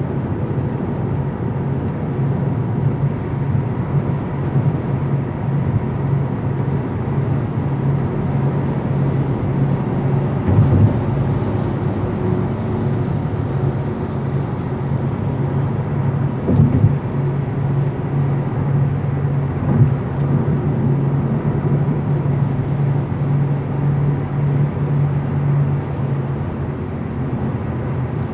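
Car driving on a highway, heard from inside the cabin: steady engine and road noise with a low hum. A few brief knocks stand out about 11, 17 and 20 seconds in.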